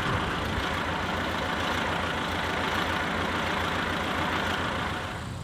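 Tractor engine running steadily with an even low pulsing, easing off slightly near the end.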